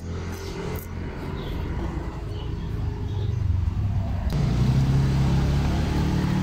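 A motor engine running steadily with a low hum, growing louder about four seconds in.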